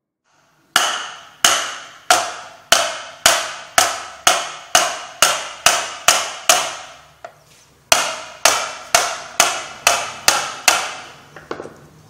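Repeated hammer blows on metal, about two a second, each ringing briefly before dying away, with a short pause partway through.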